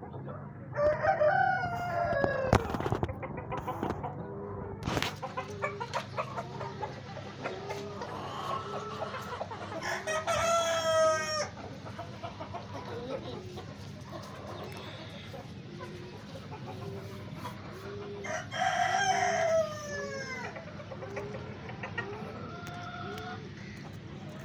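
Australorp roosters crowing three times, about a second in, near the middle and about three-quarters of the way through. Between the crows, hens give short clucks in a steady, even rhythm.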